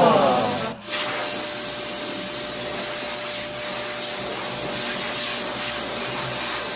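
Pet grooming blower running steadily, a rushing stream of air with a faint steady whine as it blows through a dog's thick coat. The level dips briefly just under a second in.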